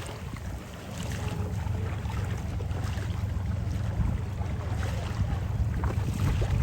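Steady low rumble of wind noise on the microphone, with faint water sounds around a sea canoe.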